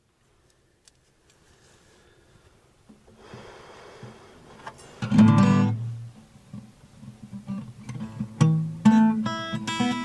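Background acoustic guitar music, strummed chords coming in loudly about halfway through after a faint start.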